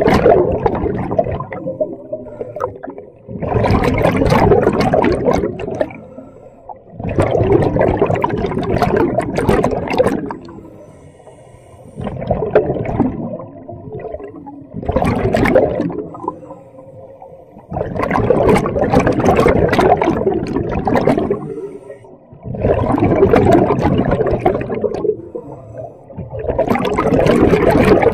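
Scuba diver's exhaled air bubbling out of the regulator underwater. It comes in rushes of about two to three seconds, repeating every four to five seconds with quieter inhalation gaps between them, in the rhythm of steady breathing.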